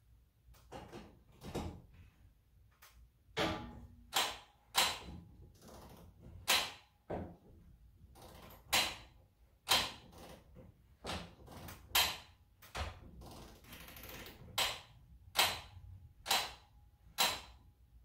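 Sharp ratcheting clicks, roughly one a second at an uneven pace, as a Torquemaster garage door torsion spring is wound up by hand to put tension on it.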